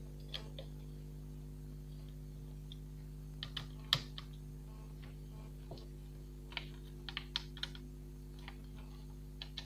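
Small, irregular clicks and taps of a screwdriver and fingers on a laptop motherboard and its metal heatsink-and-fan assembly. The sharpest click comes about four seconds in, and a quick run of clicks comes near the end.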